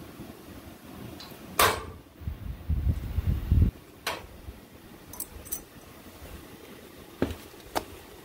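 Steel 4-link suspension bar and frame bracket knocking and clanking as the bar is worked into place: one sharp ringing clank, then a run of low rumbling knocks, then a few light metal clicks and taps.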